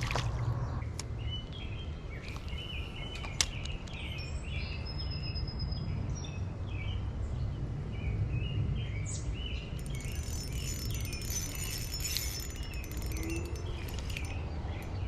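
Small birds chirping in short repeated phrases over a steady low rumble of outdoor background noise, with one sharp click about three seconds in.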